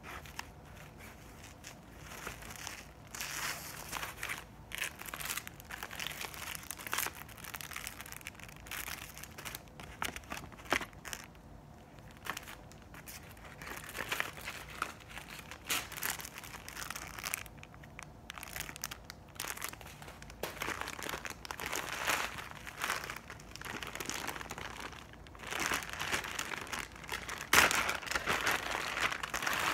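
Clear plastic packaging crinkling and rustling in irregular bursts as hands handle and open it, with the loudest crackle near the end.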